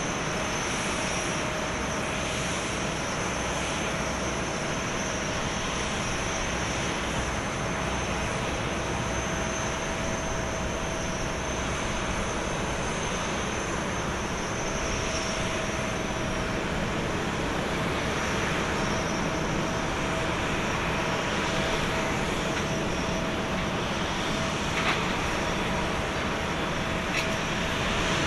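Airbus A350-900 jet airliner at pushback: a steady turbine whine over a constant rumble, with two faint clicks near the end.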